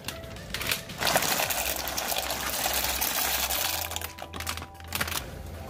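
Dry macaroni poured from a plastic bag into a pot of boiling water, with a rattle of pasta at first and then a steady hiss of the boiling water.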